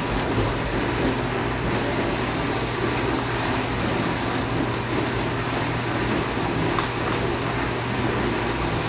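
Dishwasher running in the background: a steady wash noise over a constant low hum.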